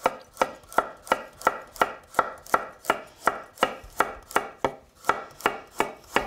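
Chef's knife chopping through a raw carrot onto a wooden cutting board, in an even rhythm of about three crisp knocks a second.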